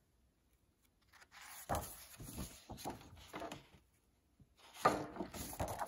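Paper rustling as a large picture book is handled and its page turned, starting about a second in, with a louder rustle near the end as the page turns over.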